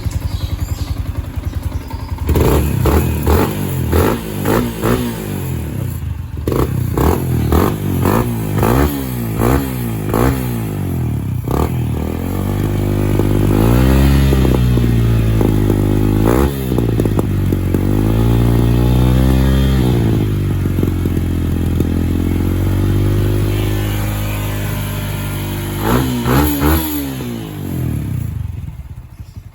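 Yamaha Sniper 150 FI's single-cylinder four-stroke engine breathing through an aftermarket Kalkal exhaust pipe. It idles, then is blipped repeatedly, about once a second, then revved and held up for several seconds at a time. A few more quick blips come near the end before it settles back to idle.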